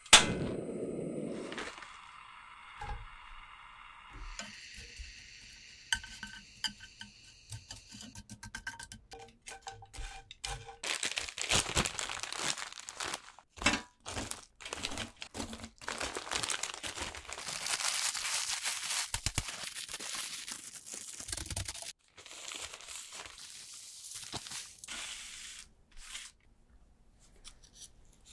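Toasted bread crusts being crushed into breadcrumbs inside a zip-top plastic bag: long stretches of the bag crinkling and the dry crusts crunching. Right at the start a portable gas stove lights with a sharp click and a brief rush of flame.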